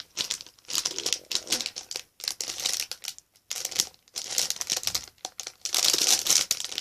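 Packaging crinkling and rustling as a mailed parcel is handled and opened, in a series of short bursts with brief pauses between them.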